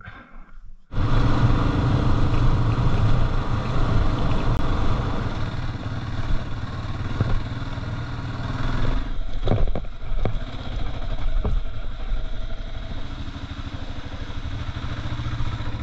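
Kawasaki KLR650's single-cylinder four-stroke engine running as the motorcycle rides a rough gravel track, starting about a second in. A few sharp knocks from the bike jolting over stones come a little after halfway.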